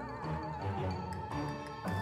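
Background music: a melody with a wavering pitch over held low notes.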